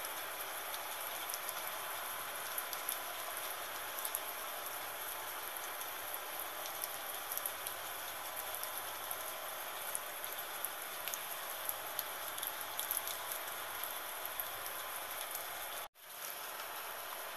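Steady gentle rain, an even hiss scattered with small drop ticks. Near the end it cuts out for a split second and fades back in.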